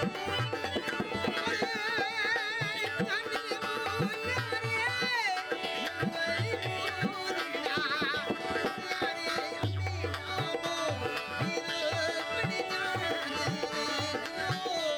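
Rajasthani Marwadi folk song played live: a hand drum beats a steady rhythm of deep strokes under held drone-like tones, while a heavily wavering, ornamented melody line sings above.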